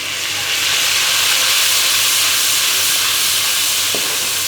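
A splash of water hitting hot oil and ground spices in a pan, setting off a loud, steamy sizzle. The sizzle swells about half a second in and eases a little near the end, where there is one light tap.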